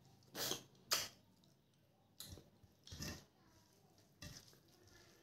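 Eating sounds: rice and mung dal being eaten by hand, with about five short, wet squishing and chewing sounds, the sharpest about a second in.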